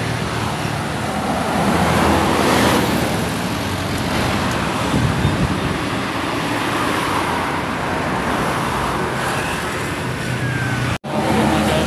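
Heavy intercity bus passing close on an uphill road, its diesel engine and tyres swelling to their loudest a couple of seconds in, then steady traffic noise.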